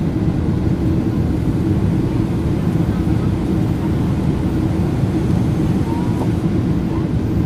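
Cabin noise of a Boeing 777-300ER climbing out after take-off, its GE90-115B engines at climb power: a loud, steady roar, heaviest in the low range, with a steady low hum running through it.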